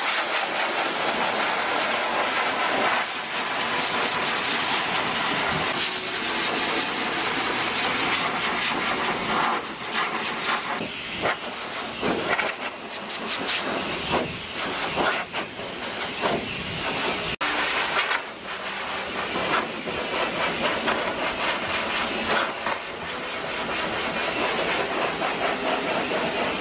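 A high-velocity dog dryer blowing: a loud, steady rush of air whose level wavers as it is moved over the coat, blowing out the loose undercoat.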